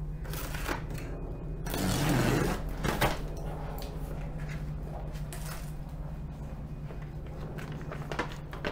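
A large cardboard shipping box being opened by hand: its flaps and packing paper rustle loudest for about a second near the middle, with a sharp click just after, over a steady low hum.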